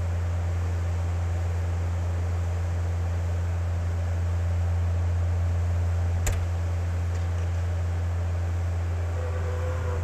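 Skid steer loader's diesel engine running steadily with a low hum. A single sharp click about six seconds in.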